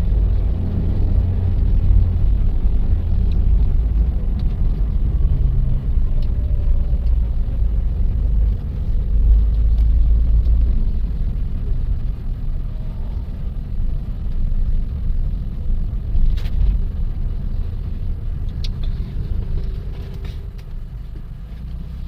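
Car driving, heard from inside the cabin: a steady low rumble of engine and tyres that eases off somewhat in the second half, with one brief click about sixteen seconds in.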